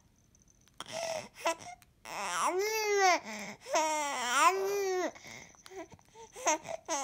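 Infant crying: a few short whimpers, then two drawn-out wailing cries of about a second each, rising and falling in pitch, and small breathy sounds near the end.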